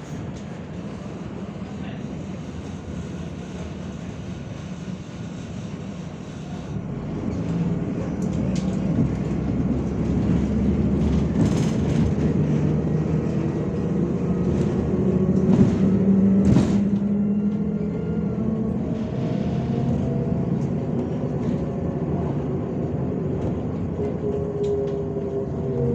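MAZ-105 articulated city bus heard from inside the passenger cabin: the engine runs steadily, then grows louder about seven seconds in as the bus pulls away. Two sharp knocks come in the middle, and later a whine from the engine and drive rises in pitch as the bus gathers speed.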